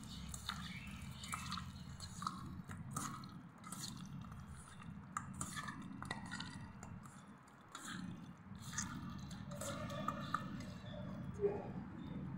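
Raw chicken pieces being mixed by hand with a wet lemon-juice and spice marinade in a steel bowl: faint wet squelching with small irregular clicks, over a steady low hum.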